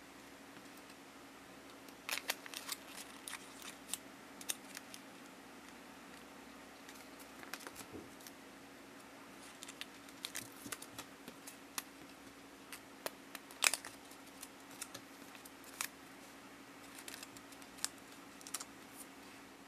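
Light, irregular clicks and taps of fingers handling small paper sleeves and miniature pieces on a cardboard board.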